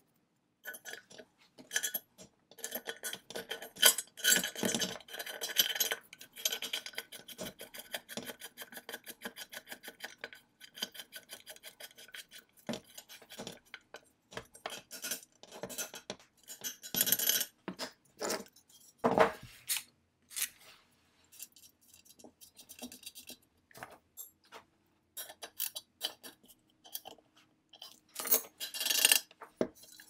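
Small brass and steel ignition-point parts of a Maytag Multi-Motor clinking, rattling and scraping against the aluminium flywheel plate as they are fitted by hand, and a screwdriver scraping as it turns a screw. A dense run of quick ticks a few seconds in, and louder clatters partway through and near the end.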